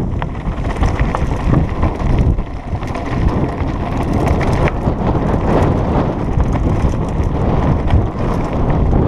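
Mountain bike riding fast down a rough dirt and gravel track: a steady wind rush buffeting the microphone over the rumble of the tyres, with scattered clicks and rattles from the bike jolting over stones.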